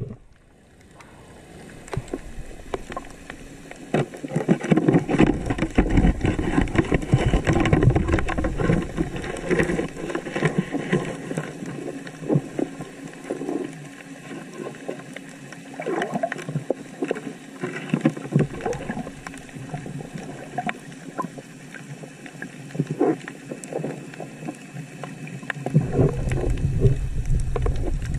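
Underwater noise picked up by a diving camera: irregular rushing and crackling. It swells for several seconds a few seconds in and again near the end.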